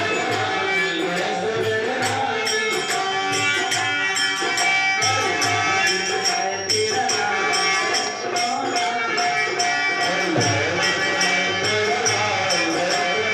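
Indian folk devotional singing with a melody that bends up and down, over a steady beat of jingling percussion.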